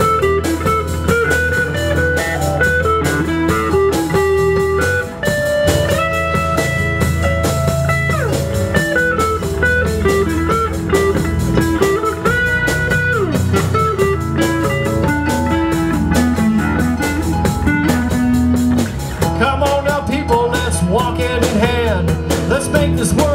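Live blues band playing an instrumental break: a lead line of held and bending notes over electric bass, drum kit and keyboard.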